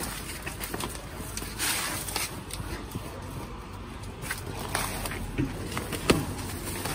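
Leaves and soil rustling as taro plants in a planting crate are handled, with scattered light clicks and a sharper knock about six seconds in.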